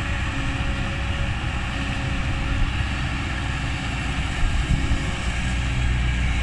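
Kobelco SK200 hydraulic excavator's diesel engine running steadily under digging load while it scoops a bucket of soil and lifts the boom, a continuous low drone.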